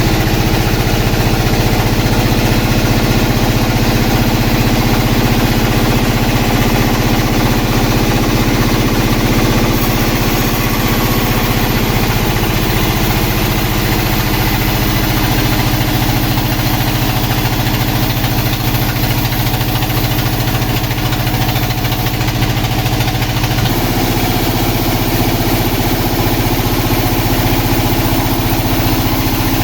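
Engine-driven sawmill running steadily, with a continuous engine note that shifts in pitch twice, once around the middle and again later on.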